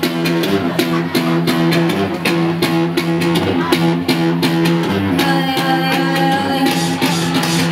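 Live band music: a steady electronic beat under electric guitar, with a long held note from about five to seven seconds in.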